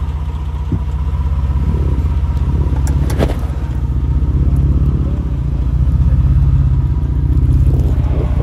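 Mitsubishi Montero's engine running with a steady, low drone, with one sharp knock about three seconds in; the sound stops abruptly at the very end.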